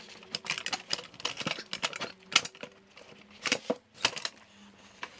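Irregular metal clinks and knocks as the hydraulic power unit assembly of a Sears 3.5-ton floor jack is worked loose and slid out of the jack's steel frame. The sharpest knock comes about halfway through.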